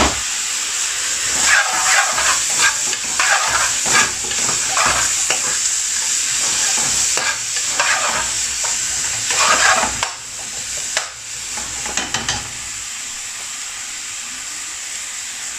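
Sliced onion and green pepper sizzling in oil in an aluminium frying pan, stirred and scraped round the pan with a metal slotted spatula in a run of quick strokes. Near the end the stirring stops and the pan is left frying with a steady, quieter sizzle.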